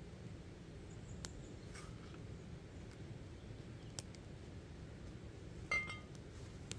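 Wood fire burning in an iron brazier, with a few sharp crackles. Near the end a louder, short ringing clink of something hard being handled.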